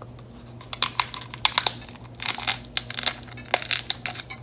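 Crunchy hard taco shell crunching and crackling in a quick run of sharp crunches, several clusters over about three seconds.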